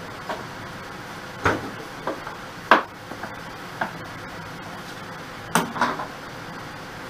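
Irregular sharp knocks and clacks of metal and wood being handled at a wood lathe's headstock and chuck, about eight in all, the loudest about two and a half seconds in, over a steady background hum.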